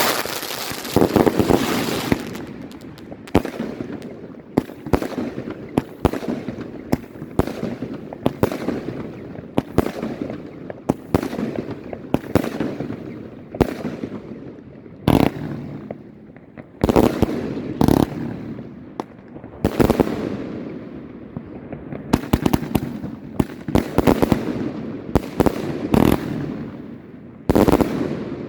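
Pryme Maxymum firework battery firing: a steady run of sharp bangs, roughly one to two a second, some trailing off in a fading tail.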